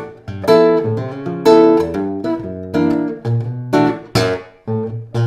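Ramirez 2CWE nylon-string classical guitar playing a run of strummed chords with sharp attacks, each ringing and dying away before the next. It is amplified through an Acoustic Image bass amplifier set to a half-microphone, half-pickup blend.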